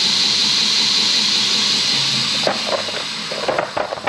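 Belt grinder running with a steady hiss, then spinning down and fading from about three seconds in, with a few light clicks and knocks near the end.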